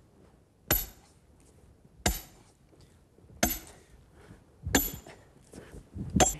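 An axe chopping into a log, five heavy blows about every second and a half, each a sharp crack of the blade biting into wood.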